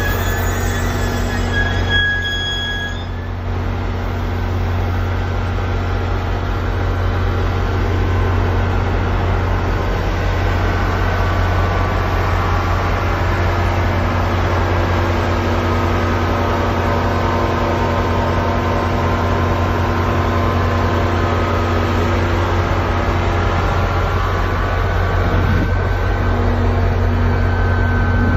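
The head end power unit of NJ Transit GP40PH-2B locomotive 4219 running, the set that supplies electric power to the whole train: a steady low drone with several steady higher tones above it.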